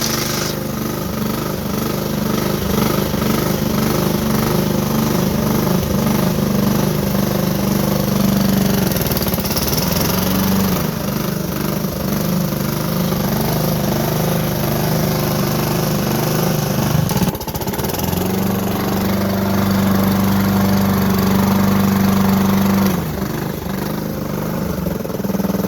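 Lawn mower engine running after a restart, with a knock at the bottom end that the owner takes for rod knock, though he allows it could be a bent blade. Its speed shifts: it dips briefly about 17 seconds in, runs steady and higher for a few seconds, then eases off near the end.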